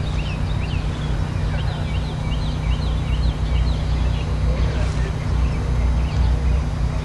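Low, steady rumble of an approaching diesel locomotive's engine, with a small bird chirping quick, repeated notes over it for the first few seconds.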